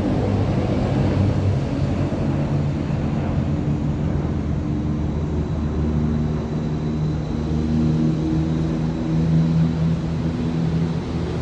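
A steady low engine drone over a rumbling background, with a hum whose pitch shifts in short stretches.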